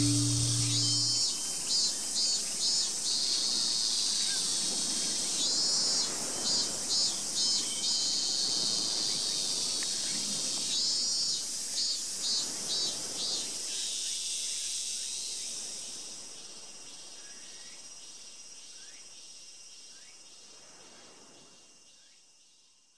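Night insects trilling in a dense, high-pitched chorus, with bursts of rapid pulsed chirps a few times, fading out over the last several seconds. A singing-bowl tone rings out and dies away in the first second.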